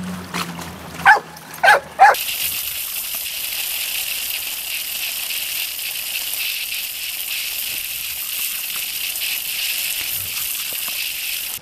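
A few short dog yips with splashing water, then from about two seconds in a garden hose spray nozzle hissing steadily as it jets water.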